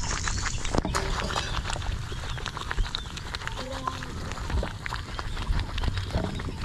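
Thick coconut-milk thothal mixture bubbling and plopping in a large aluminium pot over a wood fire as a wooden paddle stirs it, with many scattered small pops and knocks. It is at the long boiling stage where it must be stirred without pause or it sticks to the pot.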